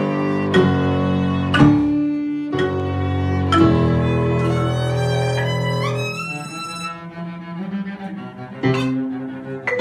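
Live small ensemble of violin, marimba and electronic keyboard playing a slow piece with long held low notes under a violin line. About six seconds in the violin slides upward, then the music thins out and gets quieter before new notes come in near the end.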